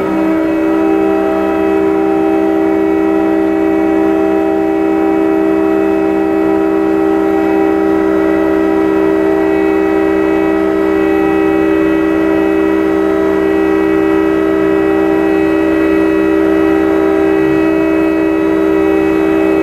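Cargo crane's hoist machinery running with a steady, multi-toned whine, heard from inside the operator's cab, as it lifts a container out of a ship's hold.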